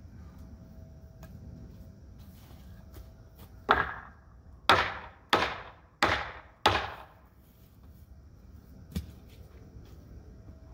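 Five hard hammer blows on the end of a 2x4 brace, driving it down so it forces a bowed fence 2x4 tight against the brick pillar; each strike rings briefly. A lighter knock follows a couple of seconds later.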